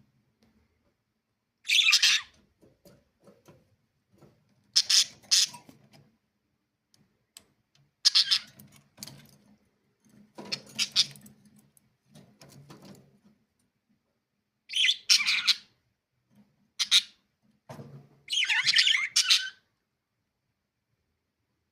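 Pet budgerigars giving loud, harsh squawks and chirps in short bursts every few seconds, with quiet gaps between.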